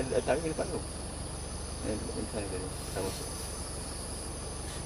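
Forest insects calling: a steady high-pitched drone, with a second, lower trill that comes and goes about every second and a half. Soft murmured voices are heard briefly at the start and about two seconds in.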